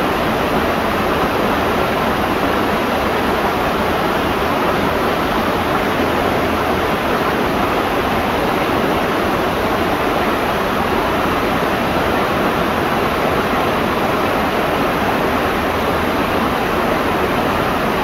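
Mountain-stream waterfall cascading over rock ledges into a pool: a steady, even rush of falling water.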